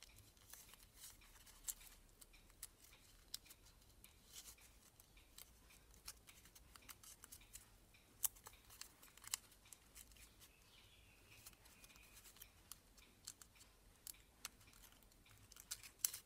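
Origami paper being folded and creased by hand: faint, irregular crackles and ticks of the paper.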